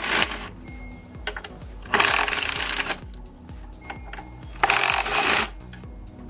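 Ratchet rattling in short bursts of about a second, twice, while loosening the throttle body's mounting bolts, with light clicks between, over background music.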